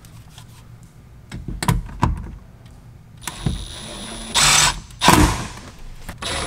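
Cordless drill driving Phillips screws into a plastic interior trim panel. There are a few light clicks and knocks, then two short, loud runs of the drill motor about four and five seconds in, and it starts again at the very end.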